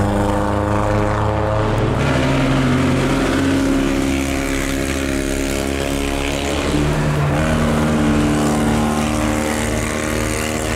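Race car engines running hard at high revs on a hill-climb course: a steady droning note that shifts pitch about two seconds in and again around seven seconds.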